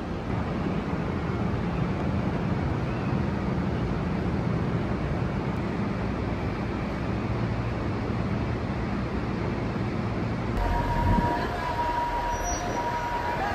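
DR2303 blue diesel railcar running, a steady low engine rumble. About ten seconds in, the sound changes abruptly, with a thump and a steady high tone that holds to the end.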